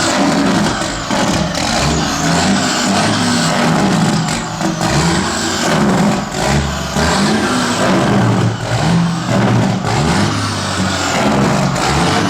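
Straight-piped diesel engine of a 2012 Peterbilt 389 semi truck, loud through its open exhaust, with its jake brake (engine compression brake) working. The engine note falls and then rises again in steps several times.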